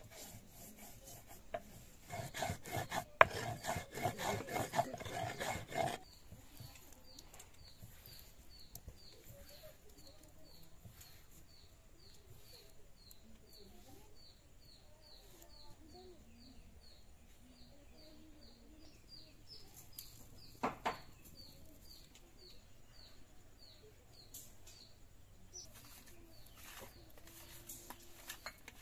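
Spice being ground by hand on a stone grinding slab: rough, rapid rasping strokes for about four seconds, then quiet. A steady series of faint, high chirps, about two a second, follows, with a single sharp knock later on.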